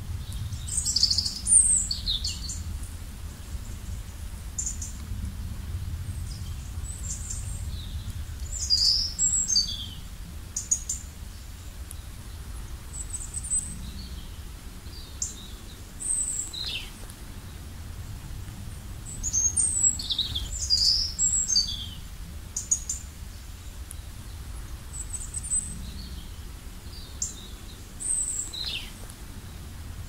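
Songbirds chirping and calling: short high chirps and whistles, some sliding down in pitch, every second or two. A low steady rumble runs underneath.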